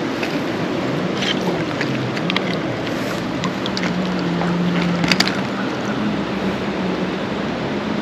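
Steady rush of flowing stream water, with a few small clicks and taps, and a faint low hum that wavers slowly in pitch.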